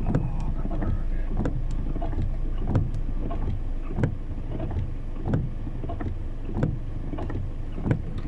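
Vehicle running along a wet road in the rain: a steady low engine and road rumble with irregular sharp knocks about once or twice a second.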